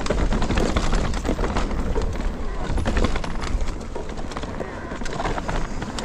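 Mountain bike running fast down a dirt forest trail: tyres rolling over roots and ground, with the bike rattling and clattering over bumps, and a heavy wind rumble on the microphone.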